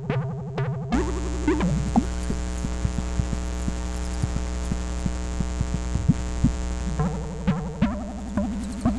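Buchla and Eurorack modular synthesizers: rapid pulsing sequenced notes give way about a second in to a dense, steady buzzing drone with a deep hum, dotted with clicks and short blips. The pulsing notes come back about seven seconds in.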